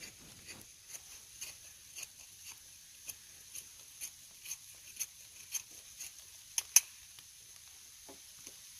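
Wallace Reaper knife blade shaving wood in repeated crisp strokes, about two a second, with one louder stroke about two-thirds of the way through.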